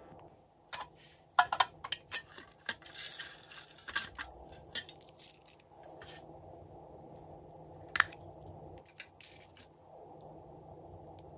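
Small hard plastic containers and lids clicking and clinking as they are handled and set down. A quick burst of sharp clicks and a short rattle comes in the first half, and a single louder click follows near the middle.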